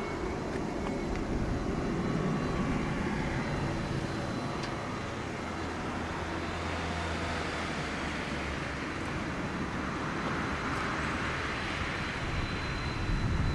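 Boeing 767-300 freighter's twin jet engines at low taxi thrust, heard from a distance as a steady rumble and hiss. A faint high whine comes in near the end.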